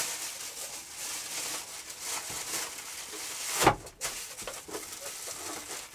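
Aluminium foil crinkling and rustling as it is wrapped around a piece of meat, with one sharp, louder crackle about three and a half seconds in.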